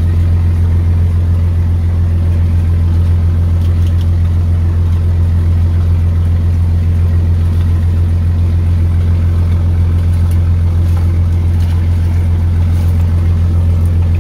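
Fishing boat's engine running steadily: a loud, unchanging low drone. A few faint ticks sound over it.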